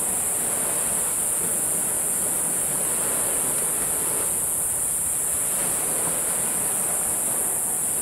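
Surf of waves about a metre high breaking and washing on the Genkai Sea shore, a steady rushing wash, under a constant high-pitched hiss.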